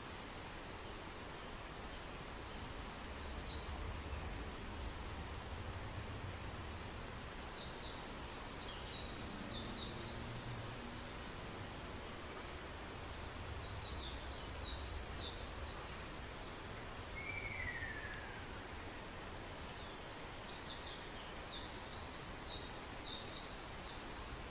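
Ruddy kingfisher giving one falling, trilled whistle about two-thirds of the way through, faint against the forest. Louder are four bursts of rapid, very high, falling notes from a small songbird, over a thin high note repeated about twice a second.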